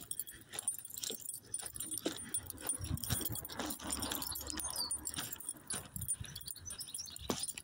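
Footsteps of someone walking on a paved platform, a short knock with each step, with light jingling from something carried.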